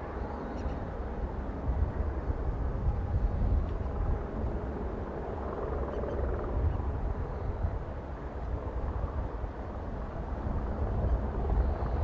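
Light helicopter hovering low: rotor and turbine running steadily, mixed with gusty wind rumble on the microphone, a little louder near the end.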